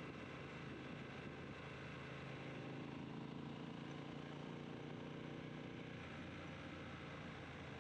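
Triumph T120 motorcycle's parallel-twin engine running steadily.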